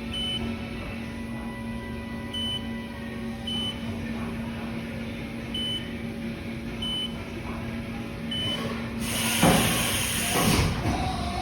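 Haas VF-4 vertical machining center powered up with a steady hum. The control panel gives six short high beeps, one every second or two, as keys are pressed. About nine seconds in, a loud rushing, clattering mechanical noise starts.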